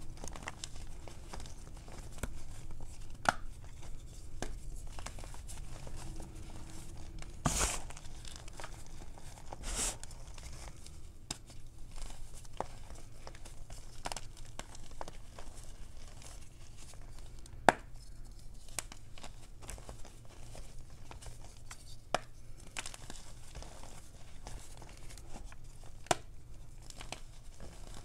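Fingers crushing and crumbling gym chalk topped with cornstarch in a tray of loose powder: soft crunching and crackling, with a few sharper snaps scattered through.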